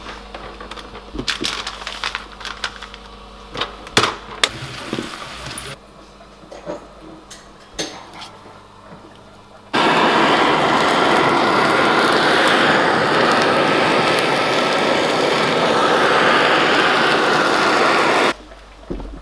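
Handheld butane kitchen torch searing a fish fillet, a loud steady hiss that starts suddenly about halfway through and cuts off suddenly shortly before the end. Before it come scattered clicks and knocks of kitchen handling.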